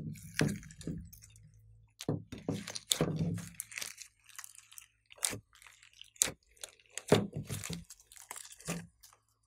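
Hands squishing and folding glossy slime mixed with clay and glitter: irregular sticky crackles and wet pops, with a few sharper snaps.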